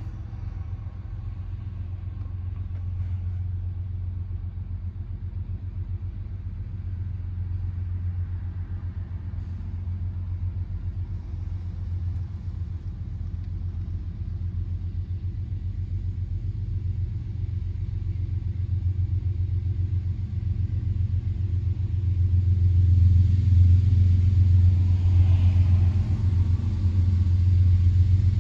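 Low, steady diesel rumble heard from inside a car's cabin, growing louder over the last several seconds as a freight train's diesel locomotives approach.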